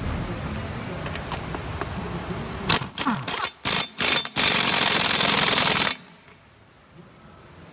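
Pneumatic 1/2-inch impact wrench triggered in a few short, loud blips, then run for about a second and a half before cutting off sharply, its air exhaust hissing strongly. Shop background hum is under the first few seconds.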